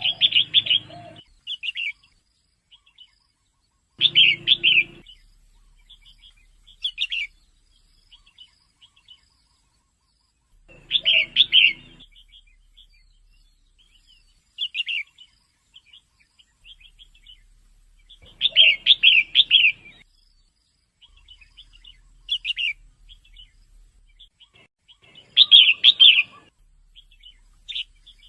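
Female red-whiskered bulbul calling: short clusters of bright chirping notes repeated every three to four seconds, with scattered single notes in between. These are calls played to stir caged bulbuls into singing and hopping on the perch.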